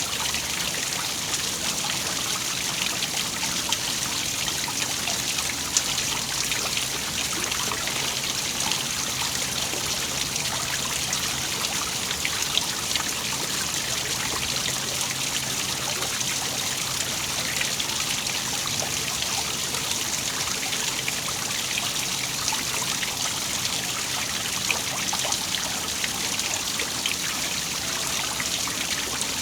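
Water of a small waterfall splashing and trickling steadily: an even, bright hiss of falling water with a few slightly louder splashes.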